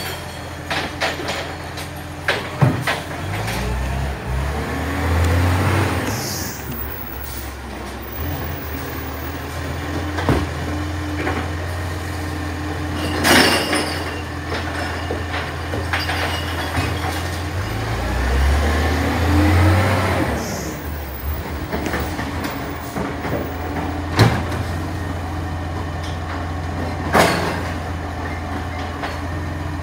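Side-loader garbage truck's engine running, rising twice as it works its arm through recycling bins, with short hisses of air and several sharp bangs and clatters from the bins and their contents.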